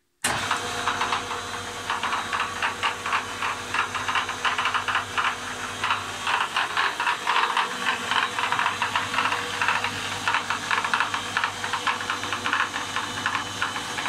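Kikinda Ernault AC280 metal lathe running with a rapid, uneven knocking from its headstock drive over a steady hum. The knocking starts abruptly just after the start.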